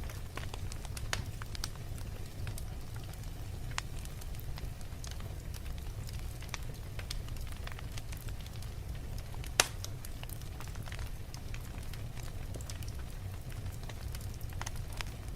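Fire crackling steadily, with scattered small crackles and one louder pop about two-thirds of the way through, over a steady low rumble.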